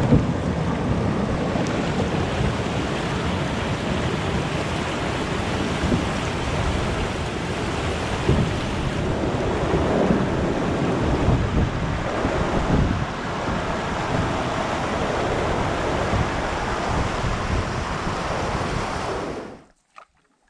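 Whitewater rapid rushing over rocks, a loud steady roar of water that stops abruptly shortly before the end.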